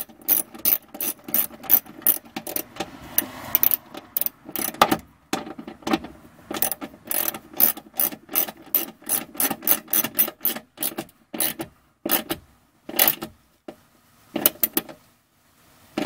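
Small hand ratchet clicking in quick, uneven runs of strokes as it tightens the bolt holding a trailer-wiring ground wire's ring terminal to the car body, with a few short breaks near the end.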